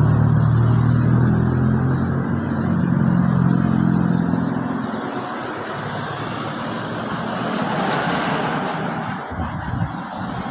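A bus's diesel engine running as it passes, a low drone that fades after about five seconds. A rush of passing-vehicle noise swells and dies away about eight seconds in.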